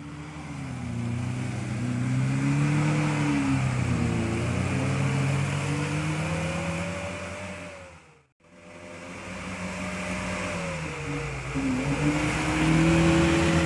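Lada Niva engines revving under load as the cars claw up deep mud ruts, pitch rising and falling with the throttle. The sound drops out for a moment about eight seconds in, then another Niva comes in revving, louder near the end.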